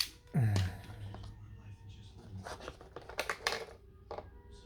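A loud deep tone sliding down in pitch about half a second in, then a run of light plastic clicks and taps from handling a wireless keyboard and its batteries.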